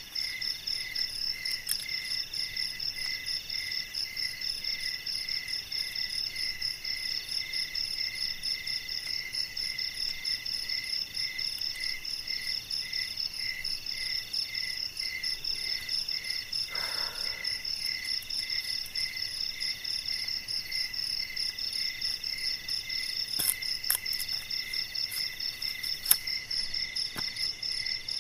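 Night chorus of crickets and other insects: several overlapping pulsing trills at different pitches, running steadily. A few sharp clicks come near the end.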